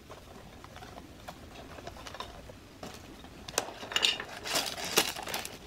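A small cardboard LEGO Friends box being opened, then its plastic bags of bricks tipped out onto a table: light rustling and small clicks at first, turning to a busier clatter of rustles and knocks in the second half.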